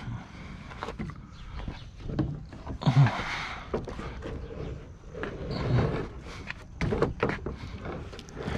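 Metal clunks, knocks and scraping as a heavy old sewing machine base on steel wheels is wrestled into place for loading, with the loudest knocks about three seconds in and near seven seconds.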